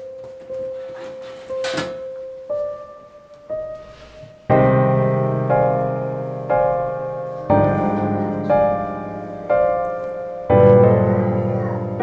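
Background piano music: a few slow single notes, then from about four and a half seconds in, full chords struck about once a second and left to ring.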